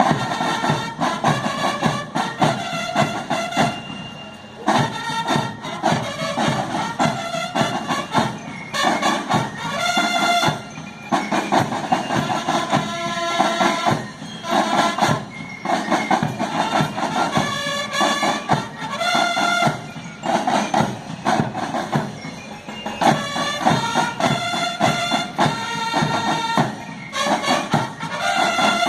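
Marching band playing: brass horns sounding phrases of held notes over a steady beat of drums.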